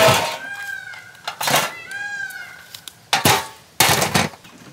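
Live mud crabs' hard shells being cracked open by hand, four loud sharp cracks, with two short high cries that rise and fall in between, like a cat's meow.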